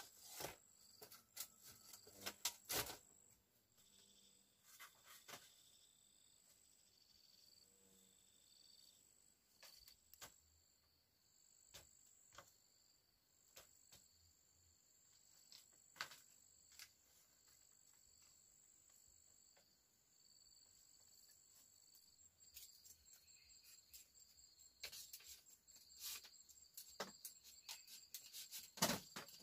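Faint, steady high-pitched trilling of forest insects such as crickets, with scattered light clicks and knocks, bunched near the start and again near the end.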